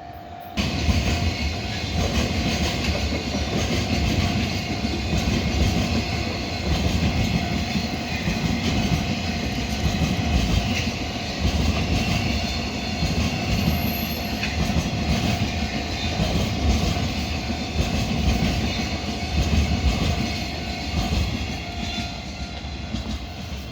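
Utsunomiya Line train passing close by at speed, its wheels clattering over the rail joints. It starts suddenly about half a second in and eases off near the end.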